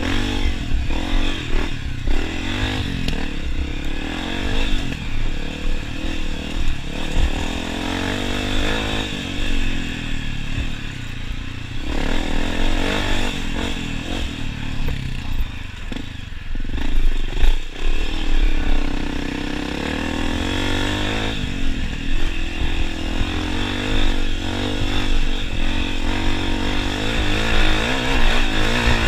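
Honda CRF250F's air-cooled single-cylinder four-stroke engine ridden hard, its revs rising and falling with throttle and gear changes. It eases off briefly twice along the way.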